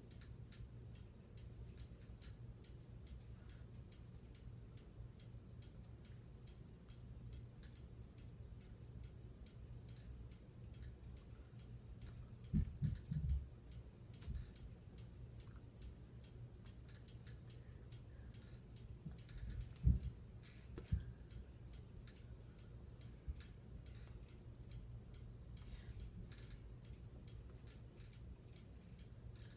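Quiet room tone: a low steady hum with a fast, even, high-pitched ticking all through. There is a cluster of low thumps about 13 seconds in and a single louder thump about 20 seconds in.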